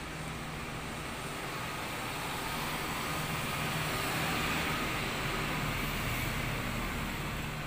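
Tractor engine passing along the street, getting louder to a peak about halfway through and then fading.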